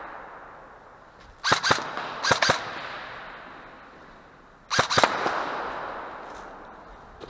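Airsoft gunfire: three short strings of a few sharp shots each, about a second and a half, two and a half and five seconds in, each ringing out in a long echo in a large, hard-walled hall.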